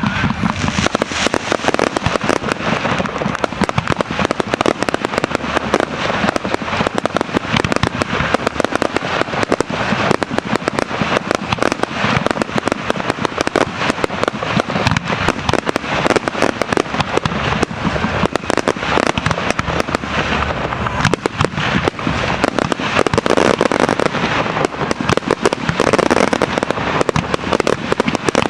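Fireworks display: a dense, unbroken barrage of shell bursts and crackling, many reports overlapping each second, as in a grand-finale rapid-fire sequence.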